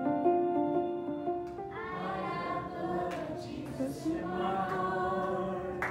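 Instrumental background music of steady, stepped notes, which gives way about a second and a half in to a group of children singing together.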